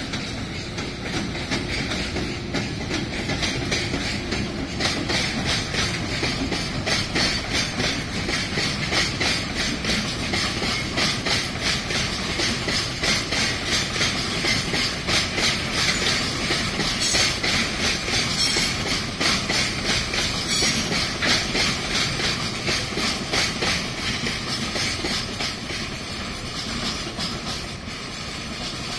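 A long freight train of railway tank wagons rolling past, its wheels clattering over the rail joints in a rapid, even clickety-clack. A few brief high wheel squeals come a little past halfway, and the clatter eases off near the end.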